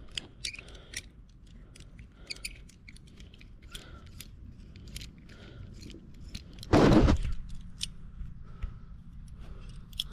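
Hand tools and metal parts being handled on a dirt bike's chain adjuster: scattered light metallic clicks and ticks, with one louder harsh scrape lasting about half a second about seven seconds in.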